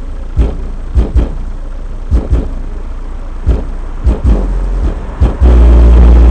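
Bass-heavy electronic music played loud through dual 8-inch subwoofers in a car: a run of deep kick-drum thumps, then a long sustained deep bass note coming in about five and a half seconds in.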